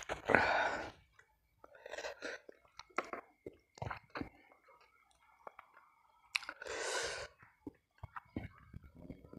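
Close-miked mukbang mouth sounds: chewing soft chicken, with wet smacks and small clicks, and two loud breaths, one near the start and one about two-thirds of the way through. Fingers pull apart the soft boiled chicken.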